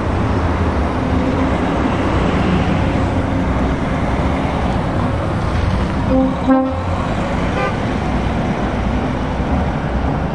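Diesel engine of a DAF tractor unit running as the truck pulls away, with a short horn toot a little past the middle.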